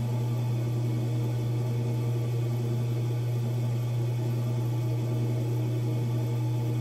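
Electric potter's wheel running with a steady low hum while the wheel head spins.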